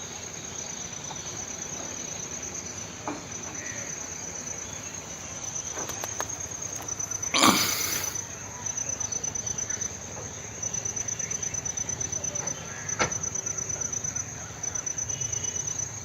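Insects trilling steadily in a high, rapidly pulsing tone. A short, loud rushing noise comes about seven and a half seconds in, and a single sharp click near thirteen seconds.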